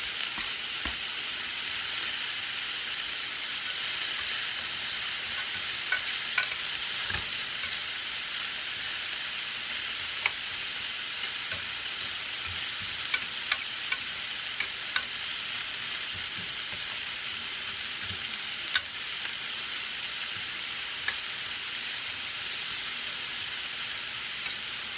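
Sliced onions, carrots and bell peppers sizzling steadily in a stainless steel skillet, with a metal utensil clinking and scraping against the pan as they are stirred. The sharpest clink comes a little past the middle.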